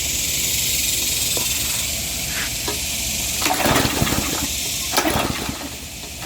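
Gasoline being poured into the Troy-Bilt edger's fuel tank, a steady trickling hiss, with a few knocks and rattles from about halfway through.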